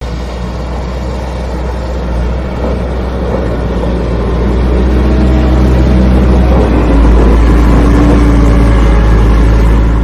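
Diesel engine of a backhoe loader working, a deep steady rumble that grows louder over the first seven seconds and then holds.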